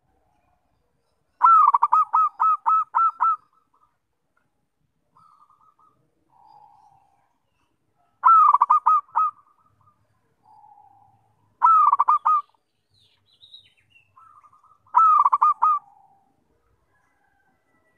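Zebra dove (perkutut) singing: four bouts of rapid, staccato cooing notes, the first the longest at about two seconds, with fainter notes in between.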